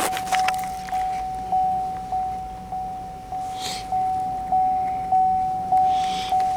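A vehicle's warning chime dinging over and over on one pitch, a little under two dings a second, each ding fading before the next. Faint rustling is heard a couple of times in between.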